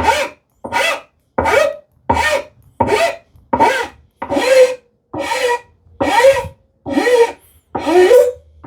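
Hand tool worked back and forth on wood in steady, even strokes, about one every three-quarters of a second, each stroke a rasping scrape with a slight squeal.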